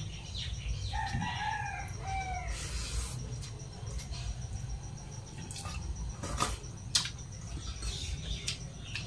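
A chicken calls once, a drawn-out call lasting about a second and a half, starting about a second in. A couple of sharp clicks follow later, over a low steady background hum.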